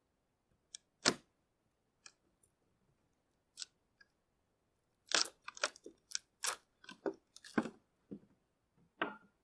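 Old wooden roof boards cracking and knocking as they are pried up and torn off a log hut roof: a few separate cracks, the loudest about a second in, then a quick run of cracks and knocks from about five seconds in.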